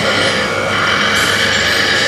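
Radio-controlled scale truck driving slowly through sand: a steady mechanical running noise with a whine, loud and even throughout.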